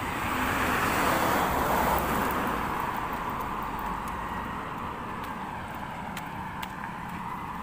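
Roadside traffic noise: a motor vehicle passes close by, loudest in the first two seconds, then fades to a lower steady hum of traffic.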